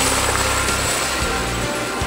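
Helicopter flying low overhead: a loud, steady rotor and engine noise with a rapid rotor beat in the first second. Background music plays under it.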